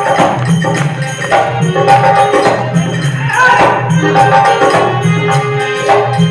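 Indian devotional bhajan music played instrumentally: tambourine jingles over a steady drum beat and sustained held tones.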